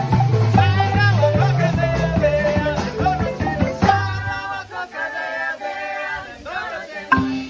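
Marimba ensemble playing, with a bass marimba carrying a low repeating line under the higher marimbas. About four seconds in the bass stops and the music thins out to higher notes and voices as the piece winds down.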